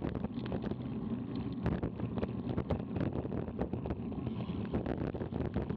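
Wind rushing over the microphone of a camera on a moving bicycle, a steady low rumble, with many irregular sharp clicks and rattles from the bike running over the road.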